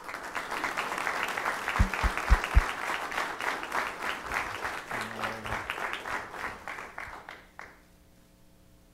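Audience applauding, starting at once and dying away after about seven and a half seconds, with a few low thumps about two seconds in.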